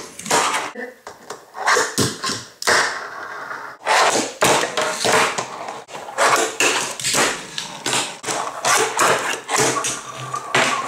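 Fingerboard on a tabletop: many sharp clacks and taps as the little board is popped and landed, with short stretches of its wheels rolling between them.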